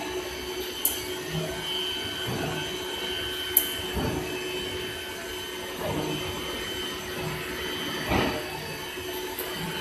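CNC router running: a steady machine hum with a high whine, sharp clicks about one, three and a half and nine seconds in, and short swells of noise about four, six and eight seconds in as the gantry and spindle head move over the panel.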